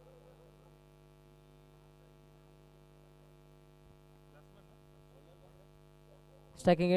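Faint, steady electrical mains hum, then a man's commentary voice starting near the end.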